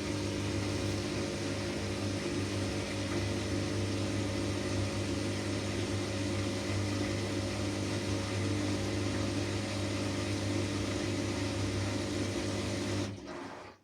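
Washing machine running steadily, a motor hum with a rushing noise over it, that stops abruptly about a second before the end.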